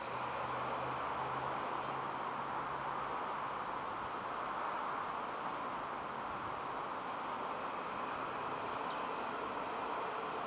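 Steady, even outdoor background noise, with a low hum that fades out about three seconds in and a few faint, high bird chirps now and then.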